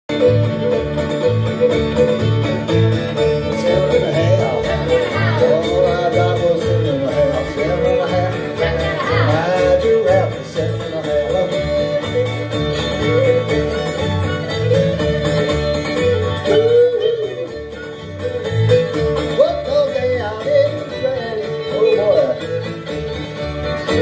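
Old-time string band playing a tune: fiddle melody over acoustic guitar, hammered dulcimer and a steady upright-bass pulse.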